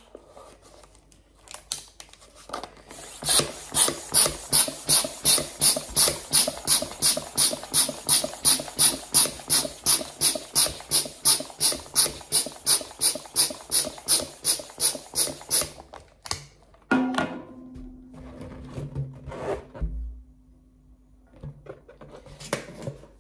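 Plastic hand balloon pump worked quickly, a rhythmic rush of air about three strokes a second, inflating a latex balloon. The pumping stops suddenly, followed by a steady low tone lasting a few seconds.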